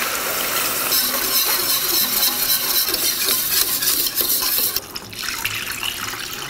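Turkey broth being poured into a copper saucepan of butter-and-flour roux while a wire whisk stirs through it: liquid splashing and a whisk working the thickening gravy. The sound thins out a little before five seconds in.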